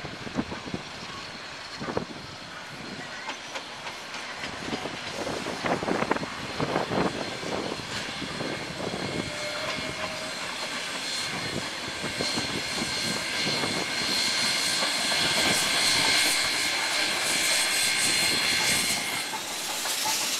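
NZR Ja-class 4-8-2 steam locomotive approaching and passing close by with its train of carriages, the sound building steadily and loudest over the last several seconds as the train runs past. A high steady ringing sounds through the second half.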